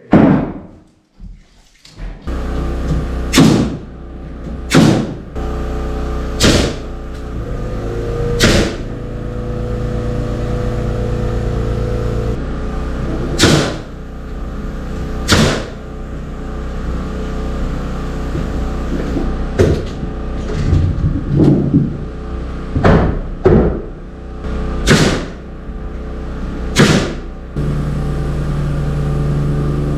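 Construction work: a dozen or so sharp single knocks, one every one to a few seconds, over a steady machine hum that shifts in pitch a couple of times.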